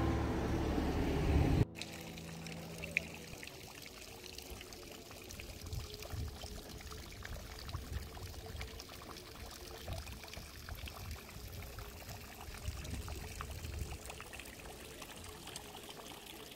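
A stone fountain's water trickling and splashing into its basin, a steady, fairly quiet sound. Before it, a short stretch of guitar music cuts off suddenly about two seconds in.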